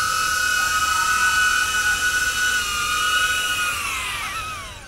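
DJI Avata FPV drone's motors and HQProp five-blade propellers hovering with a steady high-pitched whine. Near the end the pitch falls and the whine fades as the drone lands and the motors spin down.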